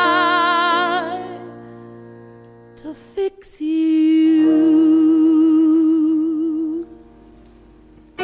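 A woman singing solo into a microphone: a held note with a wide vibrato that fades out about a second in, then after a short breath a second long held note with vibrato that ends near the close.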